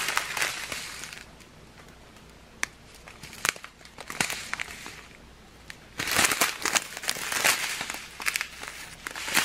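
Small plastic bags of diamond-painting drills crinkling as they are handled. It comes in two spells, briefly at the start and then more steadily over the last few seconds, with a few sharp clicks in the quieter stretch between.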